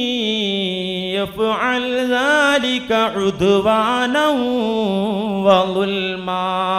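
A man's voice reciting a Quranic verse in Arabic in a melodic chanted style, holding long, wavering, ornamented notes with only brief breaths between phrases.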